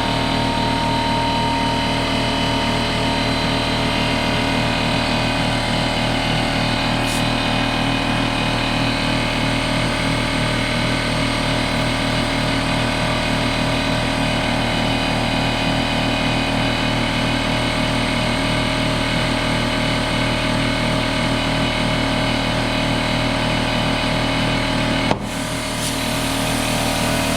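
Air compressor running steadily with a fast low pulsing while inflating a motorcycle tyre, then one sharp pop near the end as the tyre bead seats on the rim.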